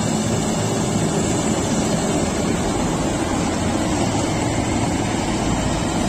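Preet 987 combine harvester running while cutting standing wheat: a steady, loud drone of engine and machinery.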